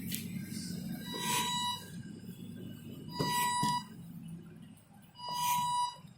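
Emergency mechanical ventilator cycling at its set rate of 30 breaths a minute. Roughly every two seconds a stroke gives a short, steady high tone with a rush of noise, over a low hum.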